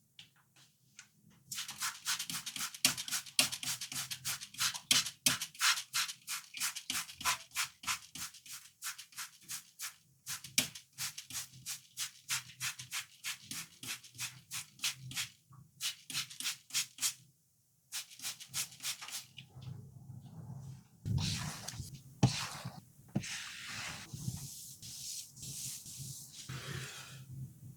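A brush scrubbing a dirty toy, with fast short back-and-forth strokes at about four a second, pausing briefly. Near the end come longer, rougher rubbing sounds.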